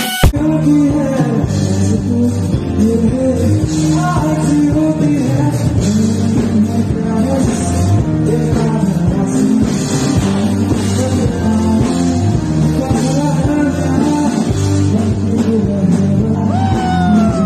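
Band music with guitars and a singing voice, rock in style, playing steadily, with a sliding note near the end.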